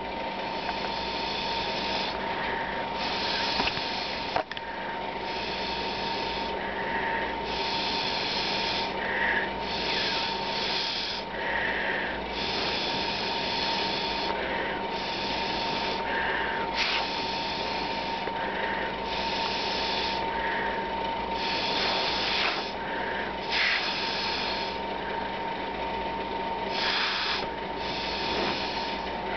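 Repeated puffs of air blown through a drinking straw: a breathy hiss lasting about a second each time, coming every second or two.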